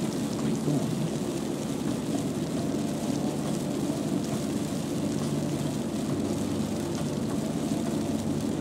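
Steady rumble and hiss of a car driving in the rain: road and rain noise, with no clear events.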